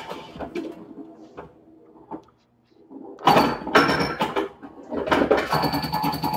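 1978 Bally Mata Hari pinball machine in play: the mechanical clacks and knocks of the playfield, with short ringing chime tones. It is fairly quiet for the first few seconds, with a brief near-silent gap, then busy clattering from about three seconds in.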